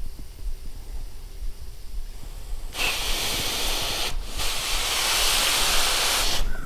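Compressed air from an air gun hissing into a Brembo six-piston brake caliper to blow the pistons out, in two blasts of about one and two seconds with a brief break between. The air escapes without freeing the pistons.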